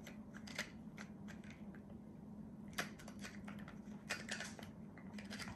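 Hand-twisted black pepper grinder grinding peppercorns: dry, crackly clicking in short irregular spells with brief pauses between twists, over a faint steady low hum.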